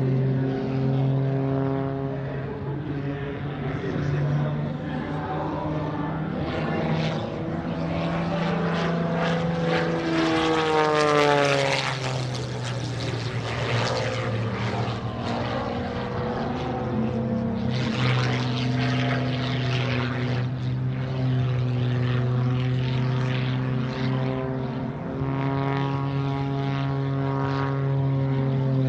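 Single-engine MXS-RH aerobatic propeller plane flying aerobatics with its engine running hard. The engine-and-propeller tone shifts up and down with the manoeuvres and falls sharply in pitch about ten seconds in, with swells of propeller noise around then and again later.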